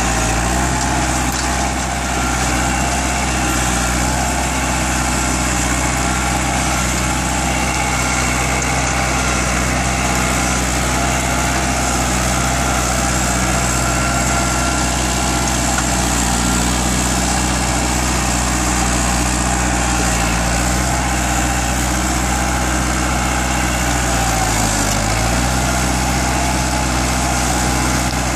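New Holland 70-56 tractor engine running steadily under load as it pulls a plough through the soil. Its pitch dips briefly and recovers near the end.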